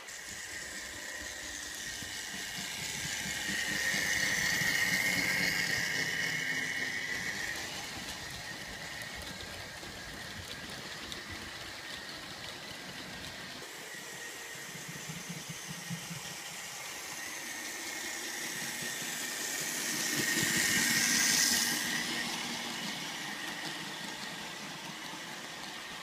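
H0-scale model train, a model NSB Di 3 diesel locomotive hauling coaches, running on the layout: a steady motor whine and the rumble of wheels on the track rise and fade twice as it passes, loudest about five seconds in and again about twenty-one seconds in.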